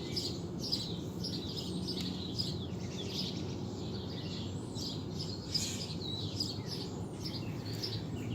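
Small birds chirping and twittering continuously, many short falling notes overlapping, over a steady low background hum.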